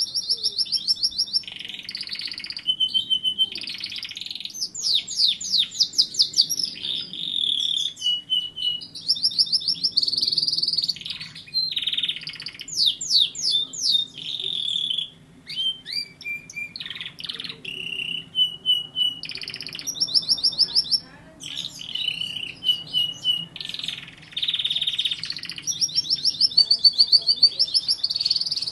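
Domestic canary singing a long continuous song of fast trills, rapid repeated notes and buzzy rolls, switching from one phrase to the next every second or two with only brief pauses.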